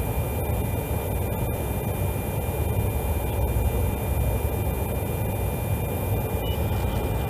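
Steady aircraft cockpit noise between radio calls: an even, low drone of engine and airflow with a faint steady high tone above it.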